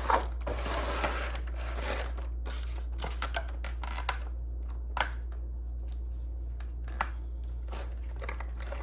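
Model-train packaging being handled: rustling and crinkling for the first couple of seconds, then scattered light clicks and taps, over a steady low hum.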